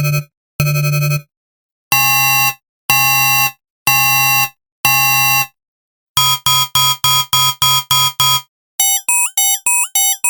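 Synthesized science-fiction alarm tones, several patterns in a row: loud electronic beeps about once a second, then a fast pulsing alarm of about four beeps a second from about six seconds in, then a chirping alarm whose pulses each end in a quick upward pitch flick near the end.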